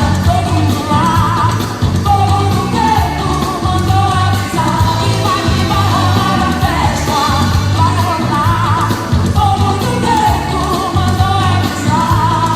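Upbeat pop song with a singer's voice over a steady, strong bass beat.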